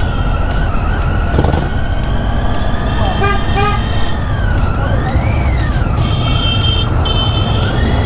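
Triumph Tiger 800's three-cylinder engine and road noise while riding slowly through town traffic, with short vehicle horn beeps a little after three seconds in and again near the end.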